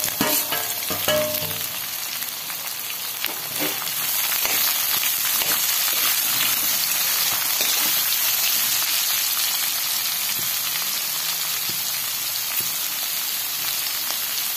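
Chopped onions, peanuts and green chillies sizzling in hot oil in a steel kadhai, a steady frying hiss, with a few scrapes of a perforated steel spatula stirring them in the first few seconds. The sizzle grows a little louder about four seconds in and then holds steady.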